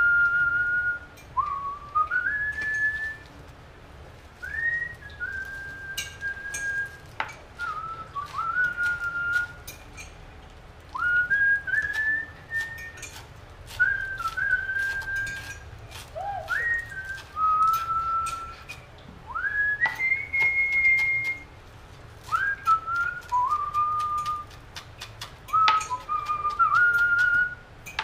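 A person whistling a slow tune, each phrase sliding up into a held note, over sharp clicks of a knife chopping on a plastic cutting board.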